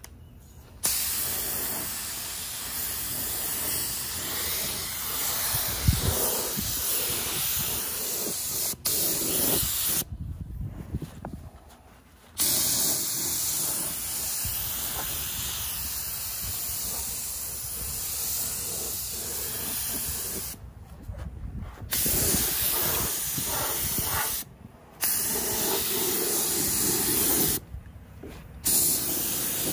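Compressed-air gravity-feed paint spray gun spraying green paint: a steady hiss in long stretches of several seconds, stopping briefly a few times as the trigger is let off.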